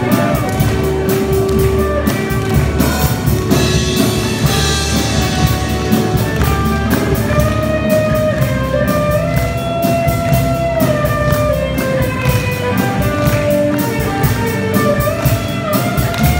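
Live rock band playing an instrumental passage: an electric guitar lead line with bends over bass guitar and drum kit.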